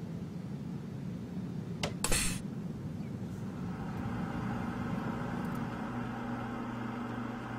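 Electric refrigeration unit running with a steady mechanical hum, with a sharp clack about two seconds in; about four seconds in the hum settles into a steadier pitched drone.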